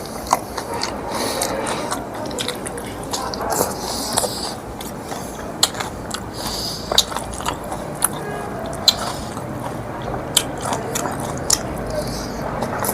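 Close-up mouth sounds of someone eating pig head meat: chewing and biting, with irregular sharp clicks and smacks.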